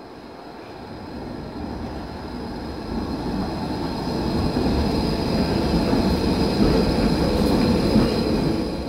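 Articulated street tram approaching and passing close by on curved track, its rumble growing steadily louder over the first five seconds, with a thin, steady, high-pitched wheel squeal from the curve.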